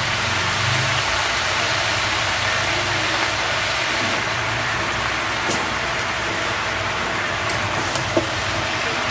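Steady sizzling hiss from a kadai of freshly added wet spinach cooking on a gas flame, with a low hum underneath. A few light clicks come in the second half, the sharpest near the end.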